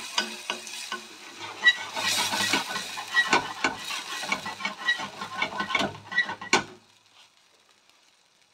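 Wooden spoon stirring sliced mushrooms in a simmering white-wine sauce in a stainless steel frying pan, scraping and clicking against the pan over a sizzle as the wine's alcohol cooks off. About two-thirds of the way through, the sound cuts off suddenly to near silence.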